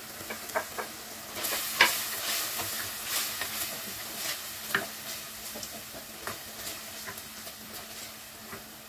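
Mutton mince and chopped tomatoes sizzling in hot oil in an earthenware pot, stirred with a wooden spoon: scrapes and clicks of the spoon against the pot over a steady frying hiss, busiest in the first half and thinning toward the end.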